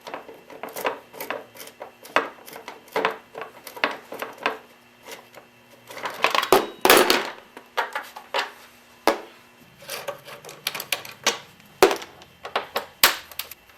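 Irregular clicks and clanks of hand tools and loose parts as the front fender and its brace come off a motorcycle's forks, with a longer, louder clatter about seven seconds in.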